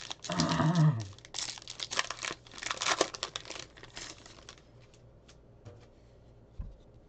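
Plastic wrapper of a baseball card pack being torn open and crinkled, in noisy bursts for about four seconds. After that, only a few light clicks as the cards are taken out.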